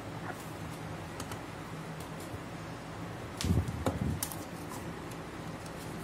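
A 2.5-inch SATA SSD being pushed and seated into a laptop's hard-drive bay: a few light clicks, then a short cluster of plastic-and-metal knocks and clicks a little past halfway, over a steady low hum.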